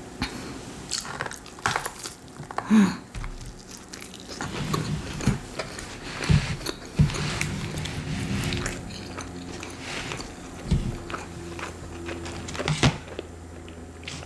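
A person chewing and biting fast food close to the microphone, with many irregular wet mouth clicks and smacks.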